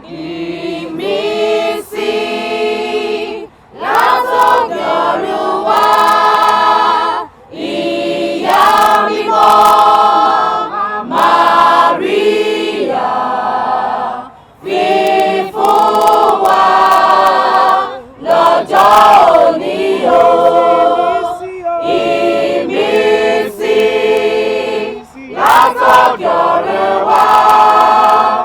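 Choir singing, phrase after phrase, with brief breaks between the phrases.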